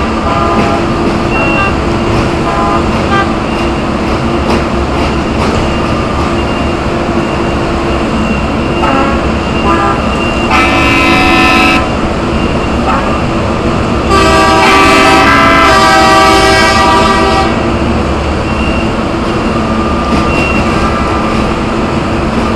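Rail-mounted cross tie replacement machine's engine running steadily as it works along the track, with two horn blasts over it: a short one about ten seconds in and a longer one of about three seconds a few seconds later.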